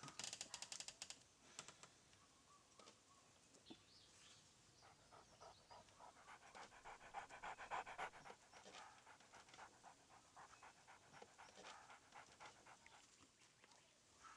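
Dog panting in quick, even breaths, faint overall and strongest around the middle.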